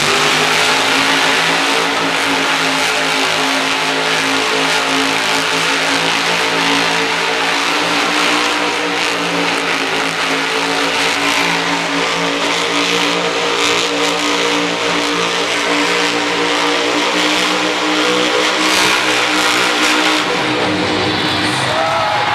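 Grave Digger monster truck's supercharged V8 running hard at high, steady revs as the truck spins donuts, easing off about twenty seconds in.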